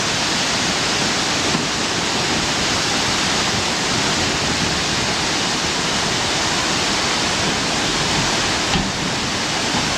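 Rushing floodwater: a steady, loud, unbroken wash of water noise.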